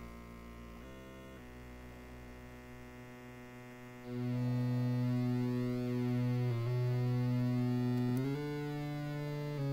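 Korg Nu:Tekt NTS-1 digital synthesizer sounding a held sawtooth note while its shape knob is turned, changing the tone. The note is soft for the first few seconds, then much louder about four seconds in, with a brief dip and a step up in pitch near the end.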